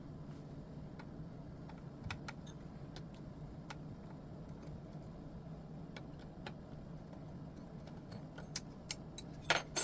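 Light scattered clicks and taps of small parts being handled while an amplifier's lamp housing is taken apart, with a few sharper clicks near the end, over a low steady hum.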